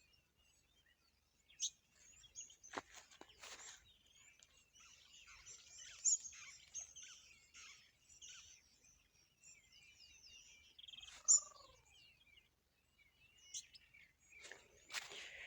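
Faint outdoor bird chirping and twittering, with a few soft clicks or rustles in the first few seconds and one call that falls in pitch about eleven seconds in.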